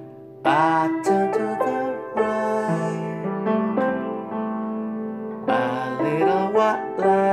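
Upright piano playing sustained chords, with a man singing over it, his voice coming in strongly about half a second in and again near six seconds.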